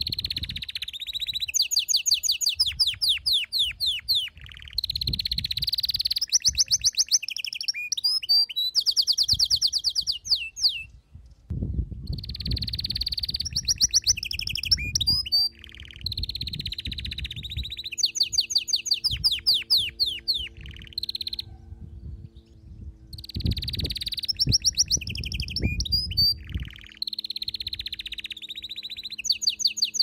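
Canary singing: phrases of fast trills and rolls of rapidly repeated notes, each lasting a few seconds with short breaks between them.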